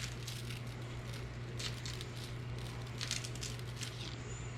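Kosher salt sprinkled by hand onto a raw ribeye steak: faint, scattered light pattering over a low steady hum.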